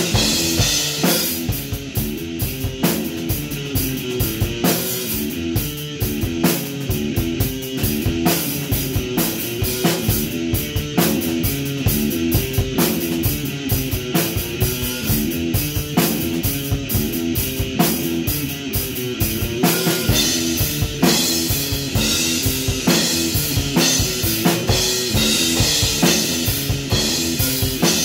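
Electric guitar playing a repeating rock riff over a drum kit beat with kick drum and cymbals.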